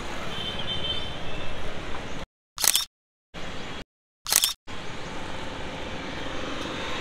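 Roadside traffic noise, broken twice by brief drop-outs of dead silence in the recording. Between the gaps come two short, harsh bursts of hiss, one about a third of the way in and one just past halfway.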